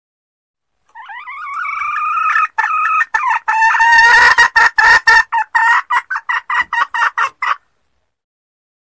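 Sumatran red junglefowl hen calling, the kind of hen call used as a lure for wild males. It opens with one drawn-out note that swells in loudness, then breaks into a quickening run of short clucks, about four a second at the end, and cuts off suddenly.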